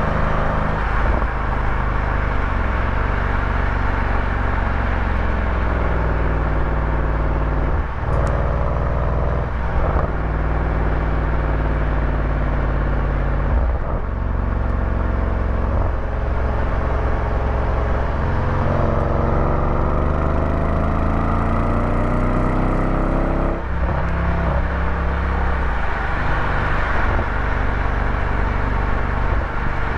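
A vehicle engine running under way, its pitch climbing as it pulls and dropping back at several breaks that sound like gear changes, over a steady hiss of road noise.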